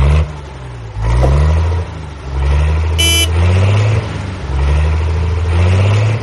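Motor vehicle engine revving up in repeated surges about a second apart, with a short high toot about three seconds in.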